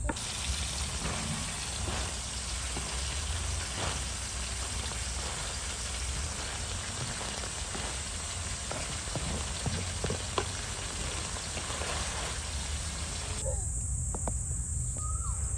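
Minced lamb sizzling as it fries in a pan and is stirred, a steady crackling hiss with a few sharp taps; the sizzle cuts off suddenly about thirteen seconds in.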